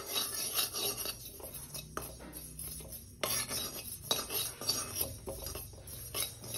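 Metal spoon stirring and scraping sesame seeds around a dry metal kadai, with irregular scrapes and clicks of the spoon against the pan.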